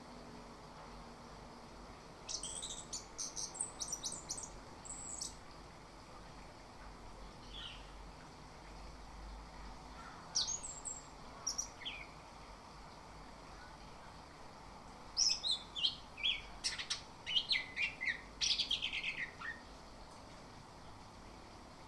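Chestnut-capped thrush (anis kembang) singing in three bursts of quick, high chirping phrases, about two seconds in, ten seconds in and from fifteen to twenty seconds in, with pauses between.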